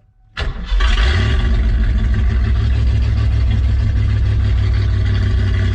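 A vehicle engine running loud and steady, starting about half a second in.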